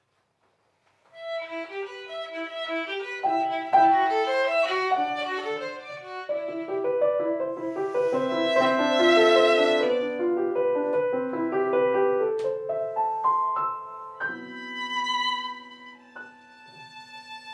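Violin and grand piano playing a piece together, coming in after about a second of silence; near the end the violin holds long notes.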